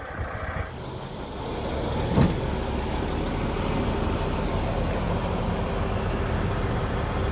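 Heavy diesel truck running, its sound building over the first couple of seconds and then holding steady. About two seconds in there is a brief, loud sound that falls in pitch.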